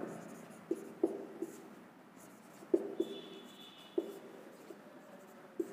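Marker pen writing on a whiteboard: a handful of short taps and soft strokes at irregular intervals as letters are written, with a faint high squeak about three seconds in.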